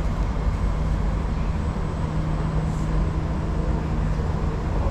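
Steady low hum and rushing noise of a stationary Singapore MRT train standing at a station platform with its doors open, heard from inside the car.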